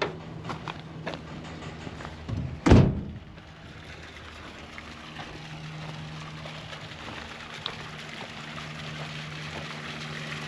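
A few light clicks, then one loud thud a little under three seconds in as the barn door is pulled shut for the night, followed by a steady low hum.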